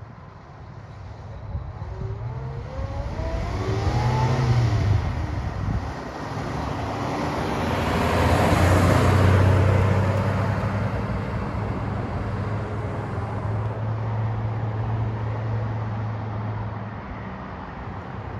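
A 1954 Chevrolet pickup's straight-six engine drives by. The engine note climbs as the truck accelerates toward the microphone and dips briefly about six seconds in. It is loudest as the truck passes, eight to ten seconds in, then settles into a steady low drone as it pulls away.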